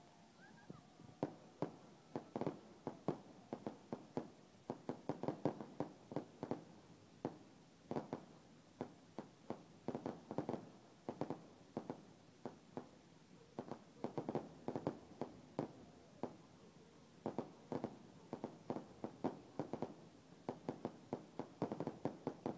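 Aerial fireworks bursting in a dense barrage: many sharp bangs and pops in irregular clusters, several a second, starting about a second in.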